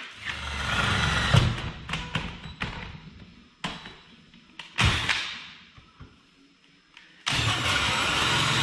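A few knocks and handling clatter, then about seven seconds in a Sears Craftsman 20-volt cordless drill starts up suddenly and runs steadily, driving a 3-inch Starrett hole saw into the metal side of an old ice box.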